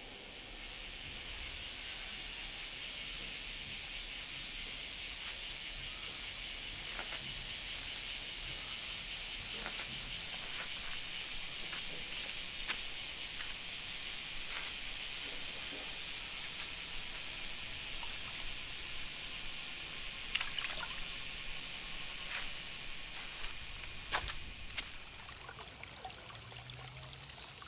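Steady high-pitched insect chorus, with a scattering of small clicks and light water sounds from a basin of water.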